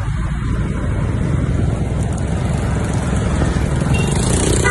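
Steady wind and road noise from riding a motorbike through street traffic, with the wind rushing over the phone's microphone. A brief horn toot sounds at the very end.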